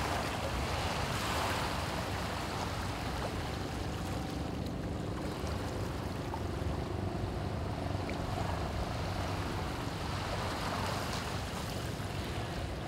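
Steady outdoor ambience of wind and water noise, with a faint steady hum underneath.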